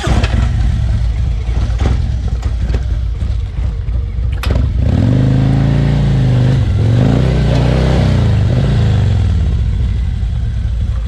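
Harley-Davidson Road King Special's V-twin engine running with uneven throttle. About five seconds in it is revved hard under load up a rocky slope, its pitch rising and falling for about four seconds before settling back. A single sharp clunk comes just before the hard revving.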